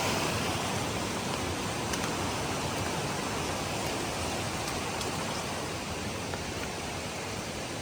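Storm-swollen spring creek rushing in flood: a steady hiss of fast-flowing water from a stream that is usually only a trickle.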